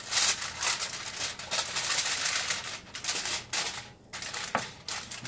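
Aluminium foil crinkling and crackling as it is pressed over a dish. The rustling is dense at first and thins to a few scattered crackles after about three seconds.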